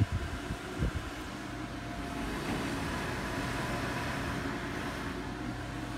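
NuTone Deluxe 70 CFM, 3.5 sone bathroom exhaust fan and heater unit running steadily, a constant hum under even airflow noise. A couple of light knocks come in the first second.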